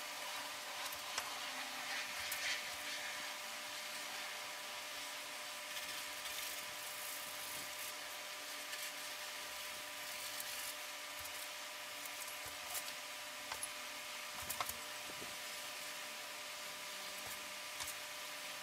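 A steady electrical or mechanical hum with hiss and several faint steady tones, with a few light taps and clicks now and then.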